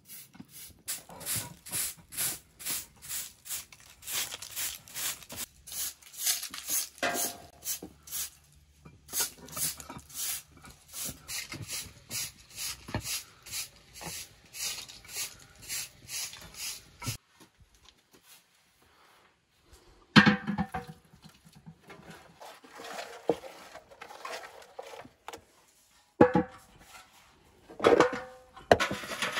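Short, even strokes about two a second for some seventeen seconds, then, after a pause, a few sharp clanks of a metal pot that ring on briefly.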